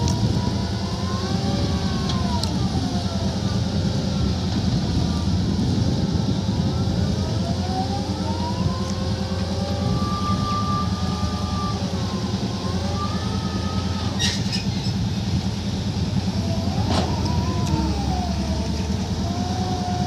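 Tata Hitachi EX210LC hydraulic excavator working: a steady diesel drone under a hydraulic whine that rises and falls in pitch every few seconds as the boom and swing are worked. A few short clanks come about two-thirds of the way through.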